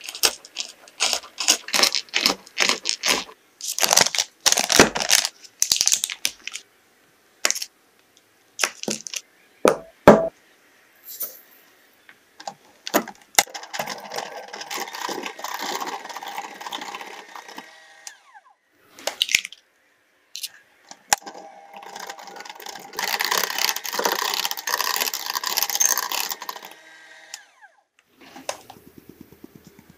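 Kitchen knife chopping roasted hazelnuts on a wooden cutting board in quick strokes, then a few separate knocks. After that an electric hand mixer whips butter and sugar in a glass bowl, in two runs of about five seconds each.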